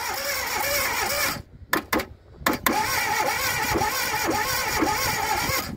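Starter motor cranking the Fiat 127's old 100GL four-cylinder engine in two long runs, with a rhythmic pulse as it turns over. There is a break about a second and a half in with a few clicks, and the engine does not catch.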